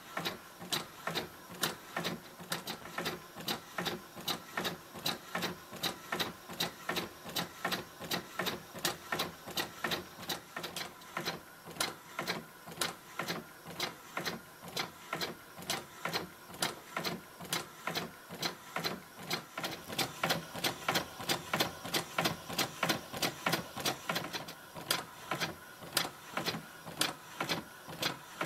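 Fischertechnik model Grasshopper half-beam engine running on compressed air: a steady, even run of sharp clicks, about three a second, one for each stroke of the engine.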